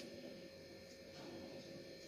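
Near silence: faint room tone with a thin, steady hum.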